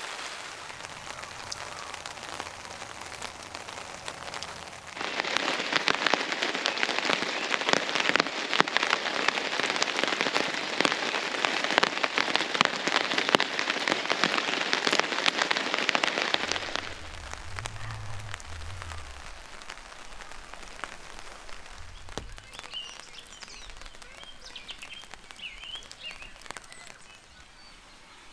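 Rain pattering on a tarp overhead: a dense, even patter of drops that grows much louder for about twelve seconds in the middle, then falls back to a softer hiss.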